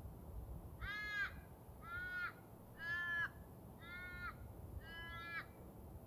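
A bird calling five times, about a second apart, each call short and pitched.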